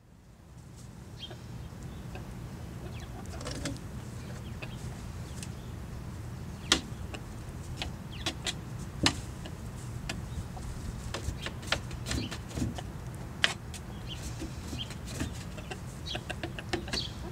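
Chickens clucking softly over a steady low hum, with scattered small taps and three sharp, loud clicks about 7, 9 and 13 seconds in. The sound fades up from silence over the first two seconds.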